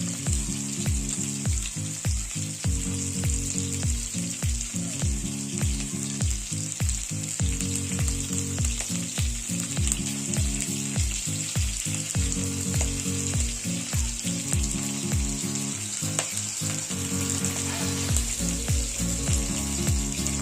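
Background music with a steady bass-drum beat, about two beats a second, under held notes that change every few seconds, over a constant high hiss.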